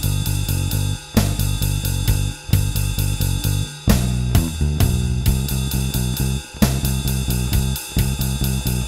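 Electric bass (a Mustang bass with a Nordstrand angled-pole pickup, run through a Seymour Duncan Studio Bass compressor) playing a plucked bass line along with a drum track with hi-hat and cymbals.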